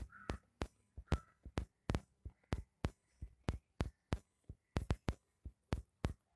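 Four young kittens suckling at their mother cat, a run of quick wet clicks about four a second, slightly uneven.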